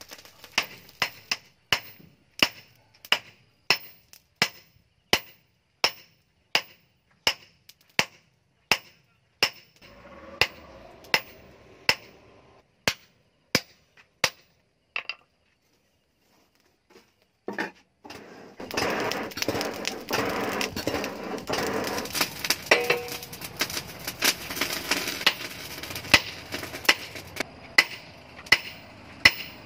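Hand hammer striking a red-hot steel knife blank on a steel post anvil: sharp, ringing blows at about two a second. The blows stop for a few seconds past the middle, then resume over a steady rushing noise.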